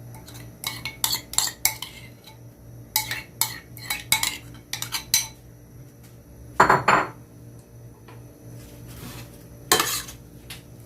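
A utensil clinking and scraping against a bowl as fried chicken wings are tossed in sauce, in irregular bursts of sharp clinks. A longer, louder scrape comes about seven seconds in.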